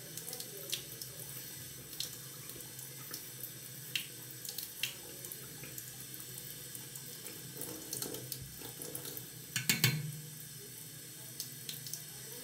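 Tap water running steadily into a sink, with scattered small clicks and a louder cluster of knocks a little before ten seconds in.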